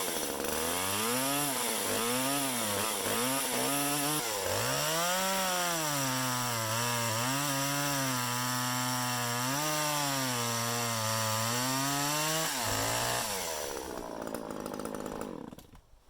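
Husqvarna 338 XPT two-stroke gas top-handle chainsaw revving in short blips, then held at a lower, wavering pitch while cutting oak. Its chain is dull. The engine drops away about 12 seconds in.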